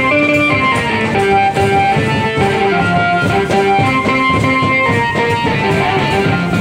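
Music: a melody of held notes that changes pitch every half second or so over a dense, busy beat.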